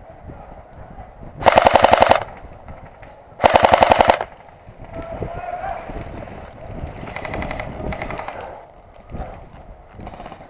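Airsoft gun firing on full auto very close by: two loud bursts of rapid shots, each under a second and about two seconds apart. Fainter full-auto bursts follow a few seconds later.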